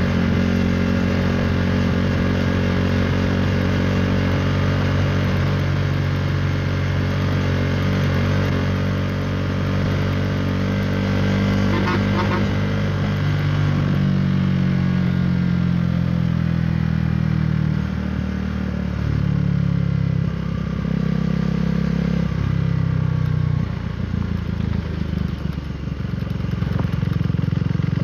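KTM 390 Duke's single-cylinder engine through an Akrapovic Racing Line exhaust, running at cruising revs. In the second half the note steps and slides in pitch a few times, and it dips in loudness near the end.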